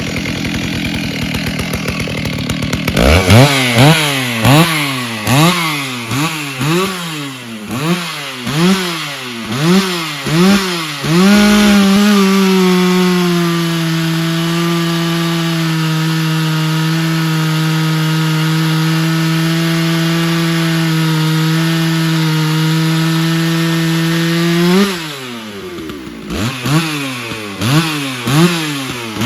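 Stihl 064 two-stroke chainsaw revved in quick blips about once a second, then held at full throttle for about thirteen seconds. During that stretch the engine's pitch settles lower under the load of cutting through a log. It rises sharply as the chain comes free, and the saw goes back to blipping.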